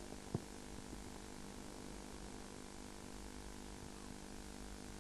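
Steady electrical mains hum with hiss from the stage sound system, and a single short click about a third of a second in.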